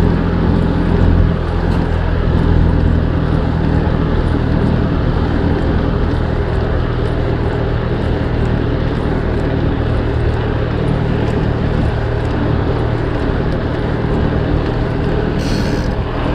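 Continuous riding noise of a dirt jump bike rolling along a paved promenade, with a steady low hum underneath and faint, frequent ticking. A short hiss comes near the end.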